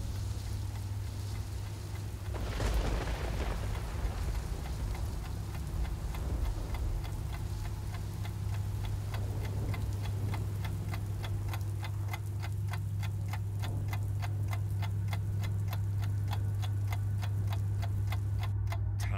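Clock-ticking sound effect: steady, regular ticks that grow clearer toward the end, over a steady low hum. A loud crash of thunder with a rumbling tail comes about two to three seconds in.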